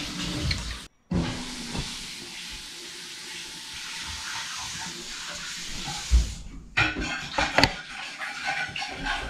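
Kitchen noise from someone cooking: a steady hiss for about five seconds that cuts off suddenly, then light clinks and clatter of dishes and utensils.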